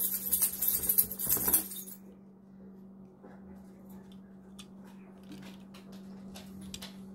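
Foil wrapper of a mystery Hot Wheels pack crinkling as it is opened and handled for about the first two seconds. After that come only faint scattered clicks as a small die-cast toy car is turned over in the hands.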